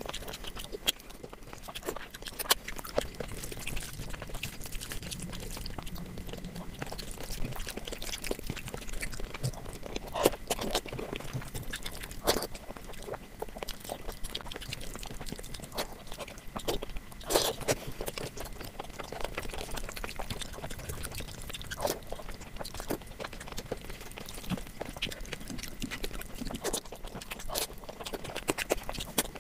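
Close-miked eating sounds: a person chewing, with irregular wet mouth clicks and smacks, a few louder than the rest.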